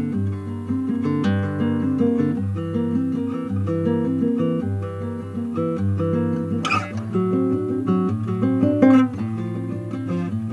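Instrumental music on acoustic guitar: quickly changing picked notes, with two sharper strummed strokes about seven and nine seconds in.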